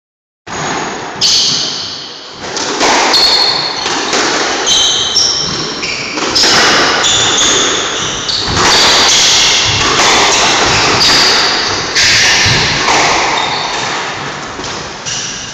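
A squash rally: the ball cracks off the rackets and the court walls again and again, with short high squeaks of shoes on the wooden floor, all echoing in the enclosed court.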